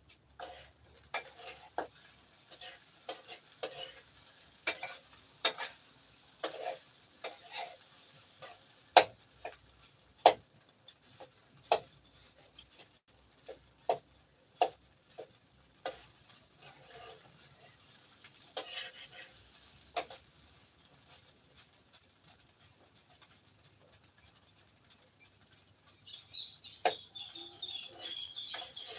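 Utensils clinking and knocking irregularly against cookware, as in stirring food in a pot while cooking. Chickens start clucking and cheeping near the end.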